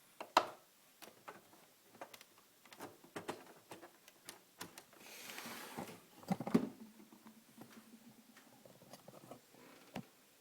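Scattered light clicks and knocks of hands handling the Asus VP228 monitor and its cables as it is connected for power-on after the repair. There is a brief hiss about five seconds in, a louder knock about six and a half seconds in, and a faint steady hum after that.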